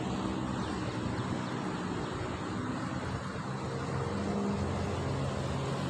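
Wind buffeting the microphone, with a faint low hum that drifts in pitch: the distant electric motor and 6x4 propeller of a small RC plane in flight.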